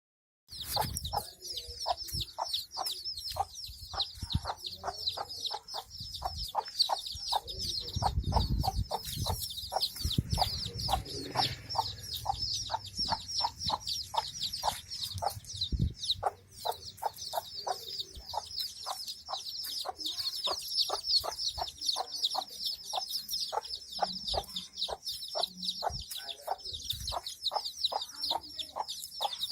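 A brood of chicks peeping continuously in a high-pitched chorus, while a mother hen clucks in a steady run of short calls, about two or three a second.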